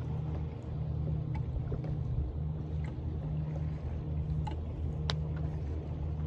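Steady low hum aboard a bass boat sitting on open water, with a few faint clicks and one sharper tick about five seconds in.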